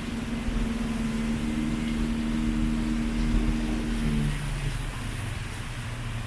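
Tour boat's motor running steadily, its note dropping to a lower pitch about four seconds in.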